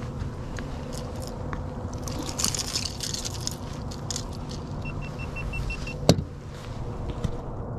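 Steady low rumble with a thin hum on a small fishing boat, with a metallic rattle of gear about two to four seconds in. Six quick, evenly spaced electronic beeps follow, then one sharp knock, the loudest sound.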